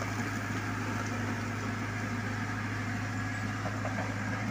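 Backhoe loader's diesel engine running steadily while the backhoe digs out a deep pit.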